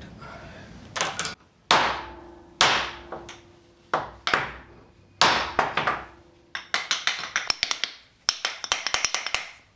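Hammer blows on the steel yoke of a propshaft's new universal joint, the metal ringing after each strike: a series of spaced hard blows, then a quick run of lighter taps in the last few seconds.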